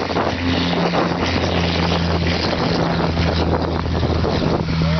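Light twin-engine propeller plane's piston engines droning steadily at takeoff power as it accelerates down the grass strip and lifts off, mixed with wind noise.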